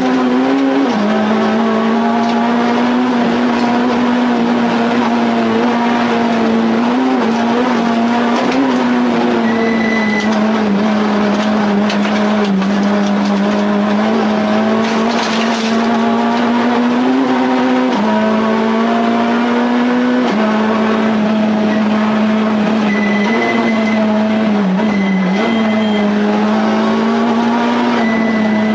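Citroën C2 R2 Max rally car's 1.6-litre four-cylinder engine heard from inside the cabin, driven hard at high revs. The pitch holds high, with a few brief drops at quick gear changes.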